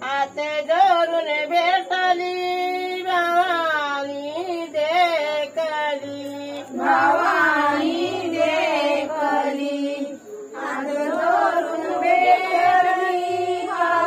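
Women's voices singing a traditional devotional song together to welcome the goddess Gauri, with long held, wavering notes. The singing grows fuller about seven seconds in and breaks off briefly just after ten seconds.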